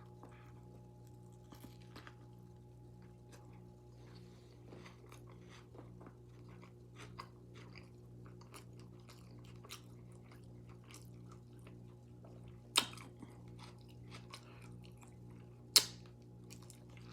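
Open-mouthed chewing and lip smacking while eating a chili dog and fries: a steady run of small wet clicks, with two sharper, louder smacks in the last few seconds.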